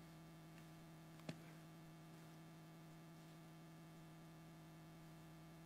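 Near silence: a steady low mains hum on the sound system, with one faint click about a second in.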